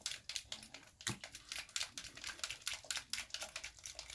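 Rapid, irregular clicking of a thin paintbrush stirring airbrush paint in a small plastic mixing cup, the brush tapping the cup's sides as the paint is mixed darker.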